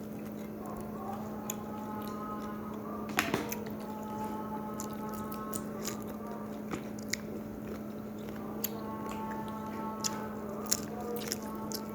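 People chewing and eating, with scattered light clicks, over a steady low hum.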